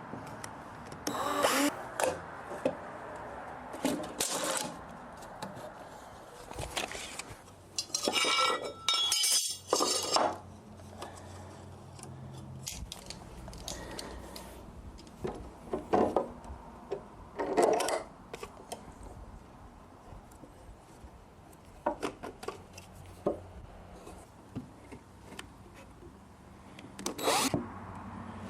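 Woodworking on 2x4 lumber: a series of short, separate bursts of tool-on-wood noise, with a longer, busier cluster about eight to ten seconds in.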